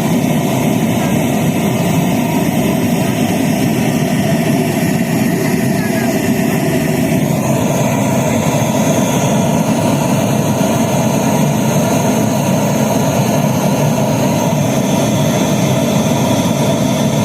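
Large carnival sound system running loud during a sound check, a steady, dense wash of sound with no clear beat; a higher band joins about seven and a half seconds in.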